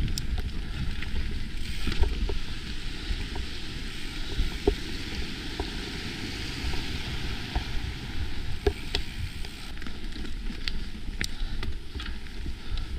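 Mountain bike riding fast down dirt singletrack: a steady rush of wind on the microphone over tyre rumble, with scattered sharp clicks and rattles from the bike.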